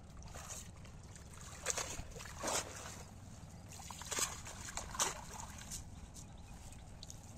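Shallow pond water sloshing and splashing as a bamboo-framed hand net is pushed and dipped through it. There are several short splashes, the loudest about two, two and a half, four and five seconds in.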